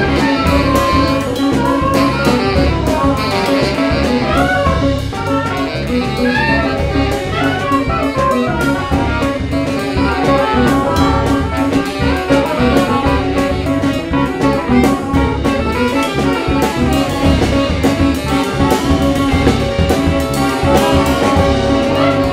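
Small jazz band playing live: soprano, tenor and alto saxophones in a busy melodic line over electric guitar, electric bass and a drum kit.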